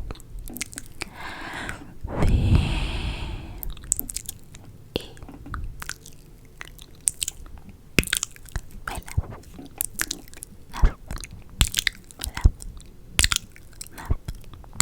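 Close-miked ASMR mouth sounds: a run of short wet clicks and smacks, with a longer breathy rush of air between about one and four seconds in.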